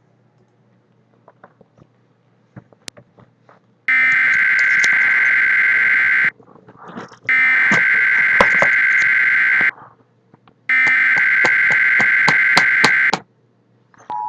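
Emergency Alert System SAME header played from encoder software: three bursts of two-tone digital data, each about two and a half seconds long with about a second between them, after a few faint clicks. The header encodes a flash flood statement, and a steady alert tone starts right at the end.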